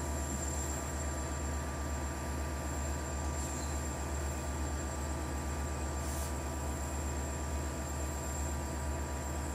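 Diesel train engine idling in a steady low throb, with a faint steady whine above it.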